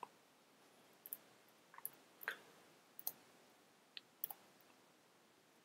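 Near silence with a handful of faint, short clicks spaced irregularly a second or so apart.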